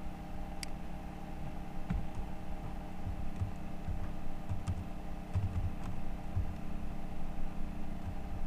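Steady electrical hum at several fixed pitches, with a few scattered keystrokes on a computer keyboard.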